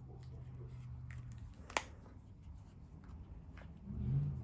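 Light handling of a plush toy and its small plastic parts: faint scattered ticks with one sharp click a little under two seconds in, and a brief low hum near the end.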